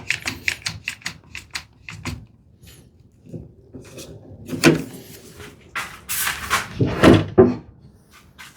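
Woodworking clamps being set and tightened on a glue-up: a quick run of small clicks, then heavier clunks and scrapes of the clamps against the wood about four and six seconds in.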